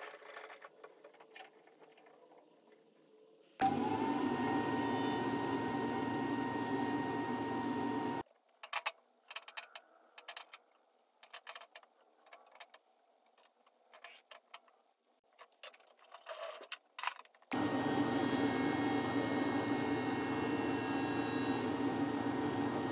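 A table saw starts up with a short rising whine and runs steadily for several seconds before cutting off suddenly. Then come scattered metal clicks and clinks as the blade is changed for a dado stack, and the saw runs steadily again as the dado stack crosscuts plywood guided by a miter gauge.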